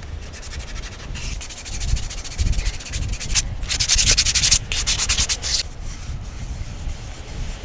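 Rapid scraping or rasping strokes in quick succession, loudest about three and a half to five and a half seconds in and stopping about six seconds in.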